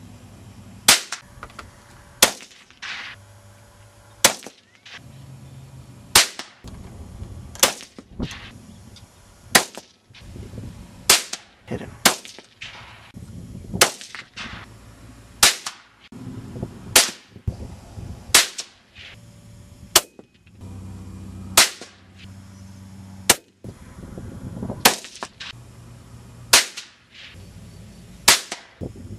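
Ruger 77/17 rifle firing .17 HMR rounds: about eighteen sharp cracks in a row, one every second and a half to two seconds, each with a short echo tail.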